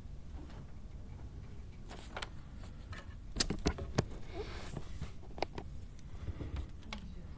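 A sheet of paper handled close to the microphone: a few sharp clicks and a short rustle about three to five seconds in, over a steady low room hum.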